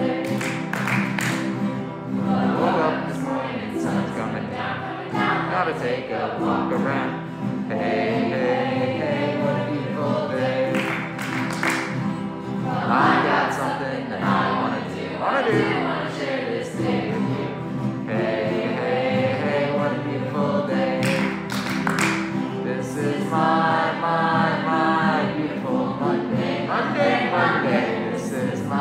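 A small group singing together, accompanied by several strummed acoustic guitars and a ukulele.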